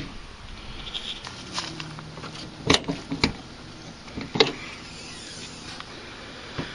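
A handful of scattered sharp clicks and knocks, loudest in the middle, over a faint steady hiss.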